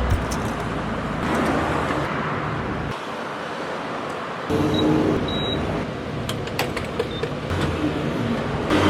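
Car and road traffic noise, a steady rushing hum that shifts abruptly in level a couple of times, with two short high beeps about five seconds in.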